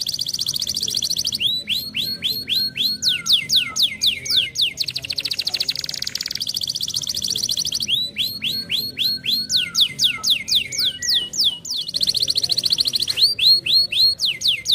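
Domestic canary singing: long, fast trills alternate with runs of quick whistled notes that each sweep downward, about six or seven notes a second. The same trill-then-sweeping-notes pattern comes round twice more.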